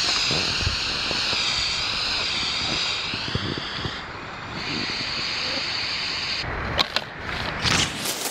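Air hissing out of an inflatable boat as it is pressed down to deflate it, a steady wavering rush that breaks briefly about four seconds in. Near the end the hiss stops and rustling and knocks follow as the deflated boat is handled and packed into a bag.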